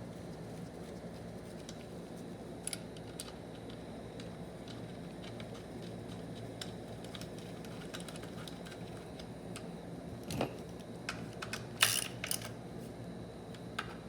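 Small metal parts of a TH400 transmission valve body being handled and fitted, giving scattered light clicks and taps over a steady low hum, with a short run of louder clicks near the end.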